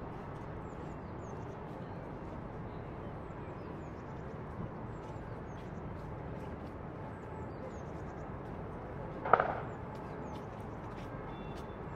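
Distant city ambience: a steady hum of traffic with small birds chirping, and one brief loud pitched cry about nine seconds in.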